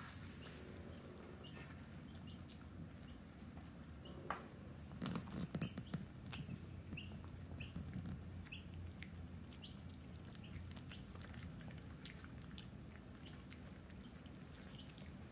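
Two small dogs chewing pizza crust, with faint wet clicks and crunches and a short burst of louder crunching about five seconds in.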